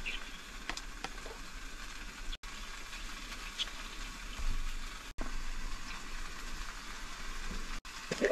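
Food sizzling steadily in a frying pan, with a few faint clicks of a spoon.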